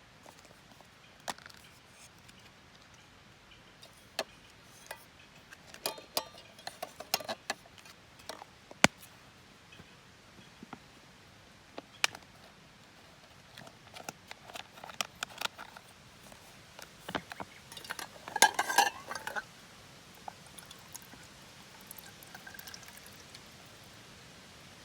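Scattered clinks and knocks of small hard objects being handled and set down, with a short burst of clattering about eighteen seconds in.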